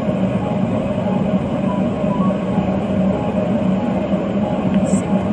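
Steady rumble of a moving vehicle heard from inside, with a constant low hum and a brief hiss near the end.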